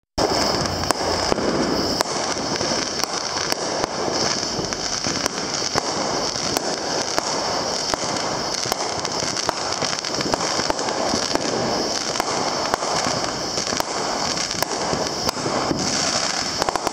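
Consumer aerial fireworks bursting and crackling, with sharp pops about once or twice a second over a continuous crackle, and a steady high-pitched hum underneath.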